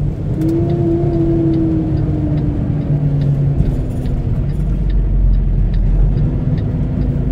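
Inside a semi-truck cab at highway speed: the diesel engine's low rumble with tyre noise from the wet road, and a steady tone that slowly drops in pitch.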